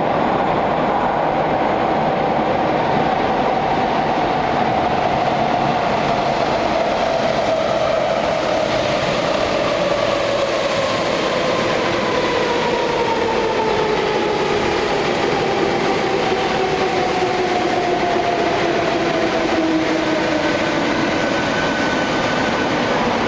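Athens Metro electric train running into an underground station, with a loud rumble of wheels on rail. Over it, the whine of the traction motors falls slowly and steadily in pitch as the train slows.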